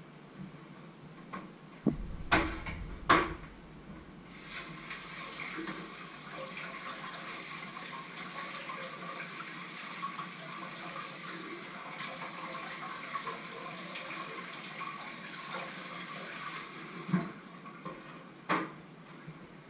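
Kitchen tap running into a sink for about thirteen seconds. A few sharp knocks and clanks of kitchenware come about two to three seconds in, and a thud and another knock come near the end.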